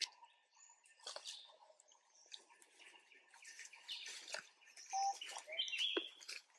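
Scattered bird chirps and short whistled calls, coming in irregular bursts with brief gaps between.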